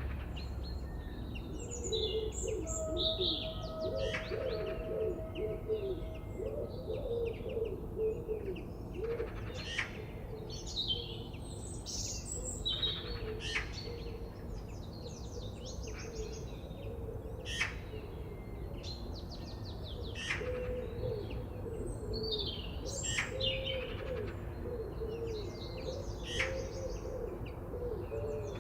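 Several wild birds chirping and singing, with quick high chirps throughout and a lower warbling call running under them from about two seconds in.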